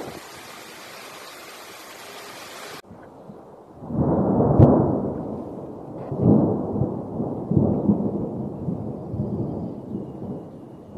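A steady rush of storm wind on the phone microphone cuts off after about three seconds. Deep rolling thunder follows, rumbling in several loud swells, as a sound effect.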